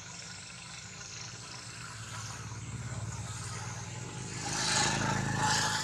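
A road vehicle passing, its sound building gradually and peaking near the end, over a steady low hum.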